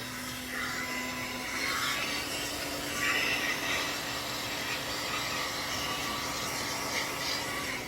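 Hot-air gun blowing steadily, a fan-driven rush of air with a faint steady hum, heating the phone's back glass to soften the adhesive. It dies away near the end.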